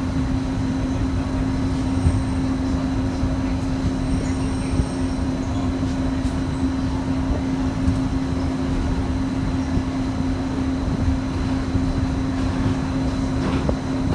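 Disneyland Mark VII monorail running along its beam, heard from inside the cabin with wind noise from the open window: a steady low rumble with a constant hum at one fixed pitch.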